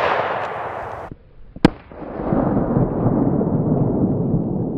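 Gunshots: the rolling echo of a shot fired just before fades out, then a sharp shot cracks about one and a half seconds in and is followed by a long rolling rumble.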